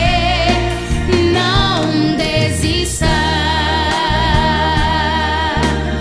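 Christian worship song: a woman's voice holds long notes with vibrato over instrumental backing with a steady bass line.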